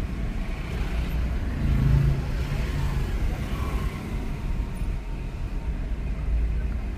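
A Suzuki car driving slowly in town traffic, heard from inside the cabin as a steady low engine and road rumble.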